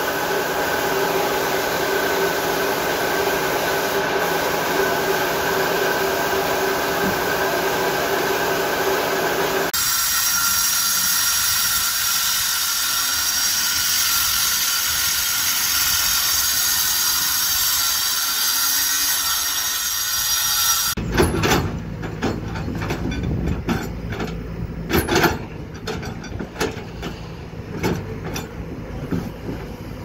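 A paint-spraying rig runs with a steady hum and level whining tones. About a third of the way in it cuts to the high, hissing grind of an angle grinder cutting into a concrete pile. Two-thirds of the way in that gives way to a Kobelco excavator's engine rumbling, with irregular sharp knocks as its bucket works over concrete pile heads.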